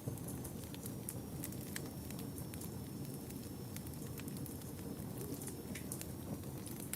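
Wood fire burning in a fireplace: a steady low rumble of flames with frequent, irregular sharp crackles and pops.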